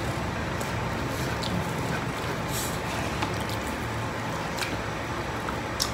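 Eating sounds of people chewing rice and fried fish picked up by hand, with scattered short smacks and clicks about once a second. A steady low rumble underlies them throughout.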